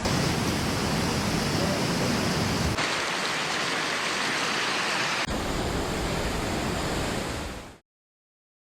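Rushing floodwater: a steady noise of fast-flowing water, changing abruptly twice as the footage cuts between clips, then fading out to silence near the end.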